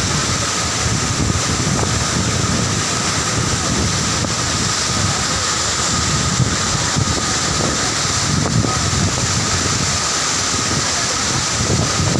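Steady rushing roar of a high waterfall, its water dropping about 75 metres, heard close to its base.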